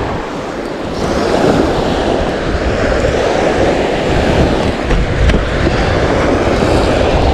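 Wind buffeting the microphone in a steady low rumble, with surf washing on the shore behind it.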